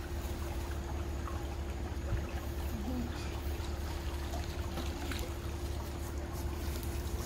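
Backyard pool ambience: a steady low rumble and hum with faint trickling water, and a few light ticks now and then as a long-poled skimmer net is worked through the water.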